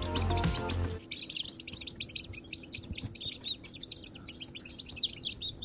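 A brood of newly hatched chicks peeping, many short high calls overlapping in a continuous rapid chatter. Background music cuts off about a second in, leaving only the peeping.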